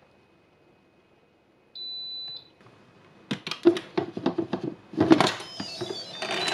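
Instant Pot electric pressure cooker: one short electronic beep, then the lid clattering and knocking as it is set on the pot and twisted shut, followed by a short run of electronic chime tones from the cooker.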